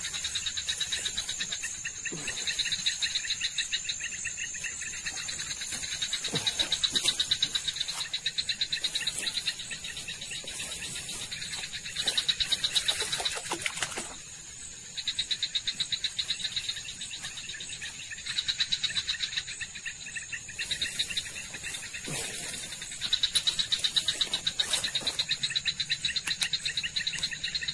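Night chorus of insects and frogs: a steady high trill throughout, with louder bouts of rapid pulsed calling that last a second or two and return every few seconds. A few brief clicks or rustles break in.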